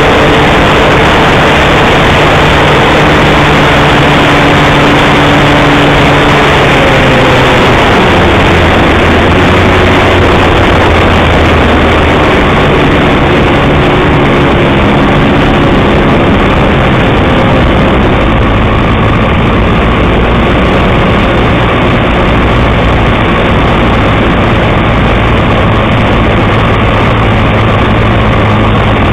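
Irvine 53 two-stroke glow engine of a Wot 4 Mk3 model plane running in flight, heard from a wing-mounted camera under heavy wind rush. The engine note drops about a quarter of the way in as the throttle is eased, then holds at the lower pitch.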